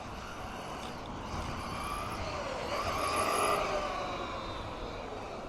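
MJX 10208 RC car's electric motor and drivetrain whining over a steady noise of tyres on pavement; the whine rises in pitch and loudness, is loudest about three and a half seconds in, then falls away as the car speeds up and passes.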